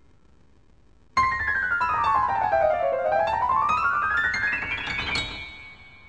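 Piano music: after a quiet first second, a sudden loud chord starts a fast run of notes that sweeps down and then climbs back up, fading out near the end.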